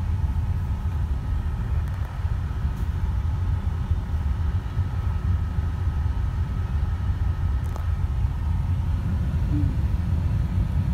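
Steady low rumble of a truck's engine and tyres, heard from inside its cab while driving.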